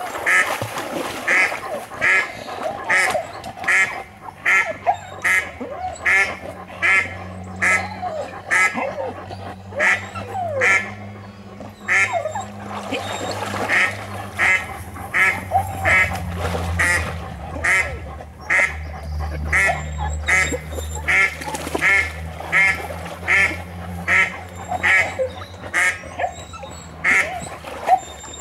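Ducks quacking in a long, rapid series of about two calls a second, broken by a few short pauses.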